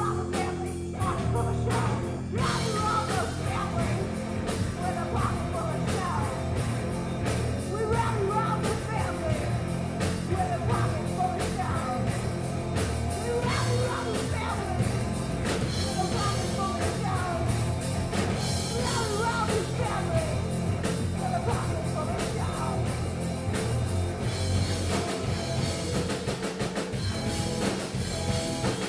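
Live rock band playing at full volume: electric guitars and drum kit, with a woman singing into a microphone. The singing thins out near the end.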